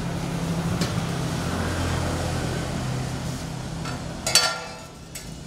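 Electric motor of a 5-litre stainless-steel blender machine running with a steady hum, then winding down near the end. A loud clank sounds about four seconds in, and a lighter knock follows.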